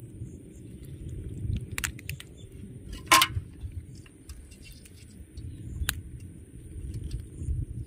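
Scattered sharp clicks and rustles of hands working a crab free of a fine nylon gill net, the loudest about three seconds in, over a low fluctuating rumble.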